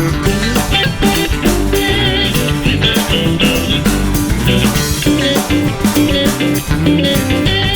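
Background music: rock with guitar, bass and a steady drum beat.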